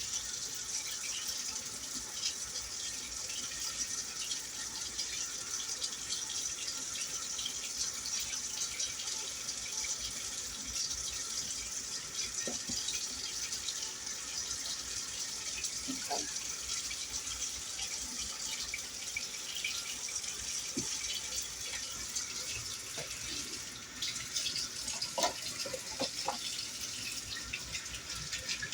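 Chicken deep-frying in hot oil: a steady high sizzle full of small crackles, with a few light knocks of utensils.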